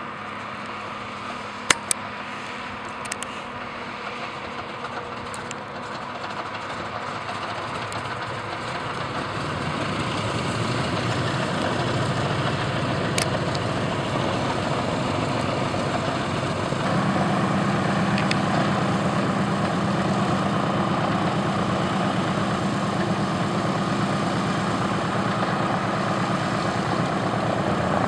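Douglas DC-3's twin radial piston engines idling with the propellers turning. The sound grows steadily louder through the first half, and about two-thirds of the way in it steps up to a fuller, steady low drone.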